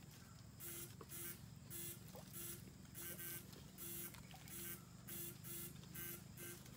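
Homemade electrofishing rig working in shallow water: a faint steady low hum with short buzzing, hissing pulses repeating about two to three times a second.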